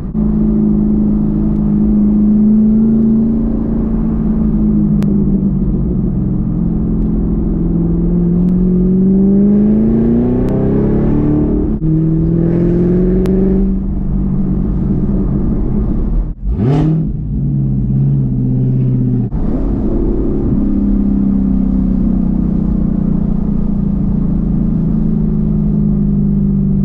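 Camaro ZL1's supercharged 6.2-litre V8 through a Corsa NPP cat-back exhaust, heard from inside the cabin while driving. The engine note climbs in pitch twice with a drop between, flares sharply upward for a moment past the middle, then settles into a steady cruise.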